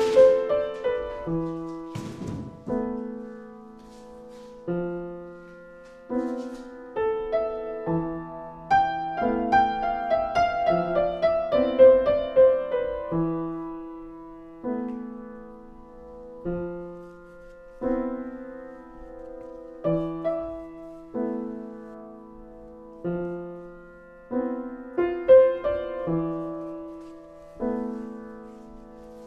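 Solo piano music: slow chords struck and left to ring out, one every two seconds or so, with a quicker run of higher notes in the middle.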